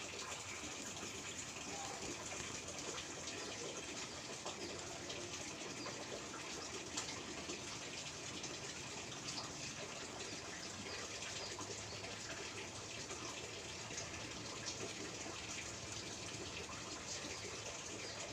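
Steady rushing noise that holds even throughout, with no distinct events.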